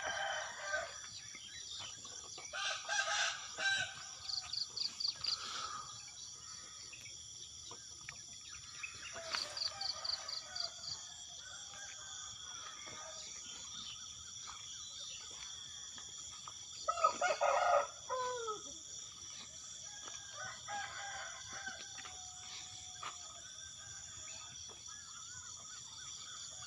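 Roosters crowing at intervals, the loudest crow a little past halfway, with smaller birds chirping over a steady high-pitched background hum.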